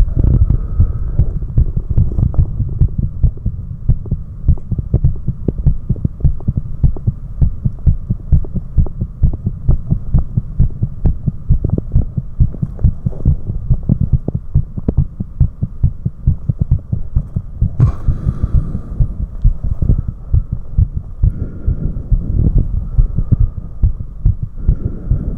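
A human heart beating fast and strongly, recorded close at the chest: an even, quick run of low thumping beats over a steady faint hum. These are a man's heart sounds after four minutes of step-ups, with a brief rubbing noise about eighteen seconds in.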